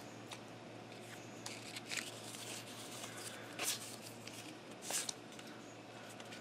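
Paper stickers being leafed through by hand: faint rustling and flicking of paper, with a few louder swishes.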